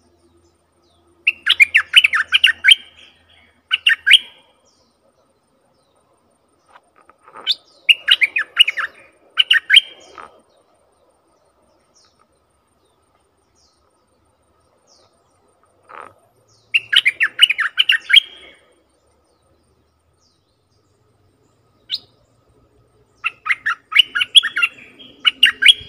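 Bulbul singing from a decoy cage: four bursts of quick, bubbling warbled notes, each a second or two long, several seconds apart. This is the lure song used to draw wild bulbuls to the trap.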